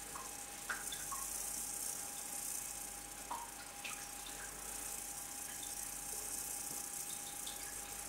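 Quiet room tone: a faint, steady hiss with a thin steady tone under it and a few soft, scattered ticks.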